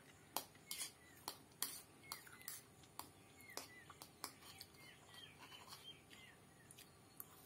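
Sharp irregular clicks of a metal fork against a plate as noodles are picked up, with short falling bird chirps repeating in the background.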